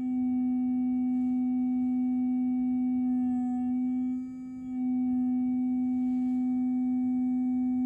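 Loudspeaker playing a steady sine tone of about 252 Hz into a resonance tube, tuned to the tube's fundamental (n = 1) resonance. The tone dips briefly in loudness twice, near the start and about halfway through.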